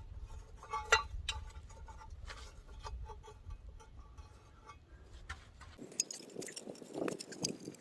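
Scattered light metallic clinks and taps, with short ringing, from track hardware and tools being handled, over a low rumble that cuts off about six seconds in.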